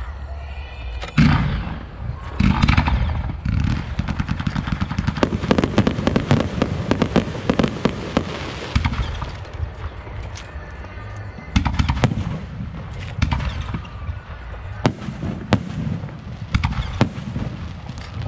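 Aerial fireworks going off: loud separate bangs, a dense stretch of rapid crackling from about four to nine seconds in, then more spaced bangs.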